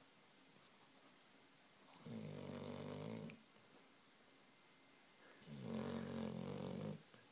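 Labrador-cross Shar Pei dog snoring in its sleep: two long snores, each about a second and a half, coming about three and a half seconds apart.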